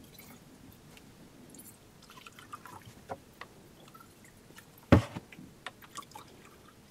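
Liquid being poured from jugs into glasses and small glass flasks, with faint dripping and small glass clicks. One sharp clink or knock about five seconds in, then a few lighter clicks.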